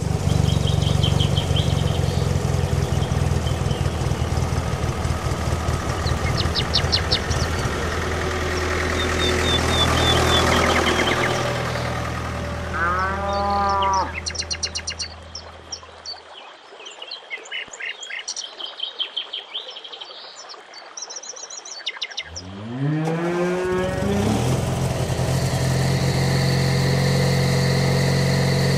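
Sound-design farm ambience: birds chirping over a steady low engine drone, with a cow mooing about 13 seconds in. The drone stops about 16 seconds in, leaving birdsong; then an engine starts with a rising pitch about 22 seconds in and settles into a steady tractor-engine idle.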